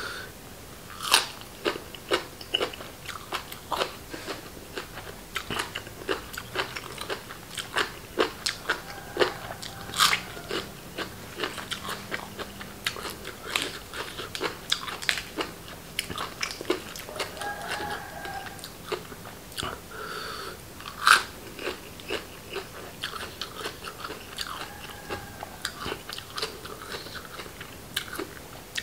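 Close-miked chewing: a man crunching mouthfuls of food, with many crisp, irregular bites and crunches.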